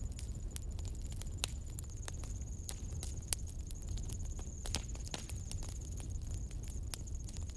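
Faint, irregular small clicks and crackles of solder and flux melting on the tip of a homemade USB soldering iron, a few a second, over a steady low hum and a constant thin high whine.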